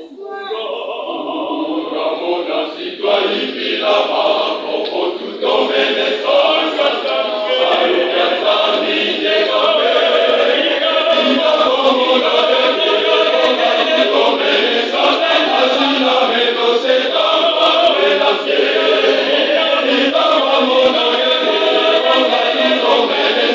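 A large church choir singing together. It comes in quietly after a brief pause and swells over the first several seconds, then sings on at full strength.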